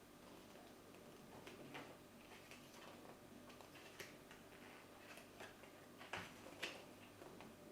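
Near silence with faint, irregular small clicks and taps from handling a box and its contents; the two sharpest clicks come close together about six seconds in.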